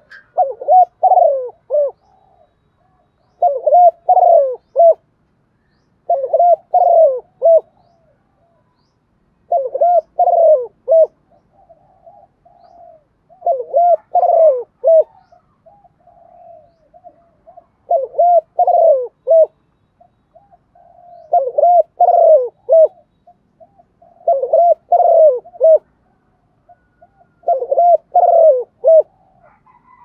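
Spotted dove cooing its calling song: nine repeated phrases of several mellow notes, one about every three to four seconds, with softer single coos between some of them. This is the calling coo a caged decoy male gives to draw wild doves.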